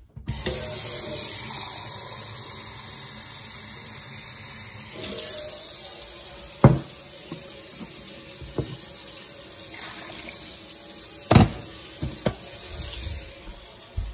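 Kitchen tap running into the sink, a steady rush of water that drops to a quieter flow after about five seconds. A few sharp knocks and clunks follow in the second half.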